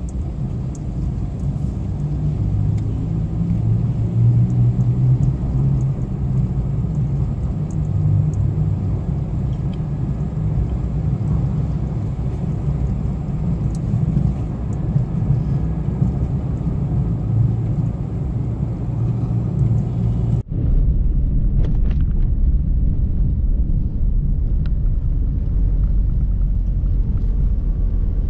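Steady low rumble of a car driving on the road, mostly engine and tyre noise. About twenty seconds in it drops out for an instant and comes back as a deeper rumble with less hiss.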